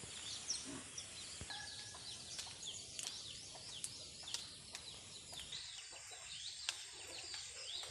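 Many small birds chirping in quick, short calls over a faint steady high hiss, outdoors among vegetation.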